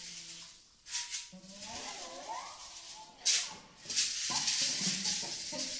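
Drums-and-guitar duo playing: hand percussion shaken in short rattling bursts about a second in and just past three seconds, then shaken steadily from about four seconds in, over sliding, wavering guitar tones.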